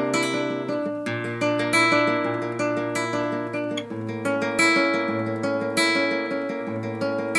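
Background music: acoustic guitar playing chords, struck about once a second.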